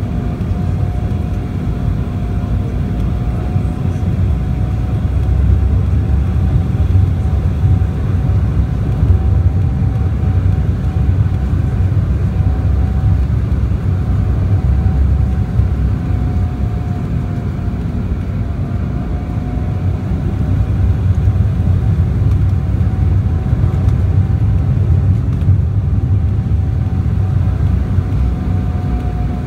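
Cabin noise inside an Embraer 190 jet airliner in flight: a steady low rumble of airflow and its turbofan engines, with a faint steady hum that wavers slightly in pitch.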